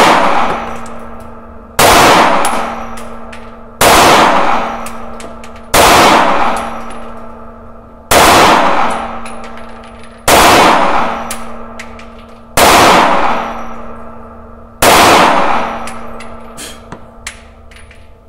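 HK SFP9 9×19 mm pistol fired in slow, deliberate single shots: seven sharp reports about two seconds apart, each followed by a long ringing decay, with small clicks between the shots.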